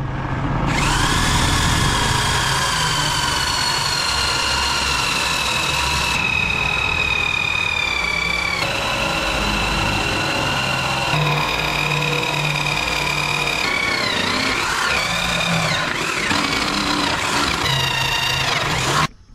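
Corded electric hand drill boring into a turned wooden rod with a spade bit, its motor whining steadily. The pitch steps abruptly a few times and sags briefly in the second half as the bit bites into the wood.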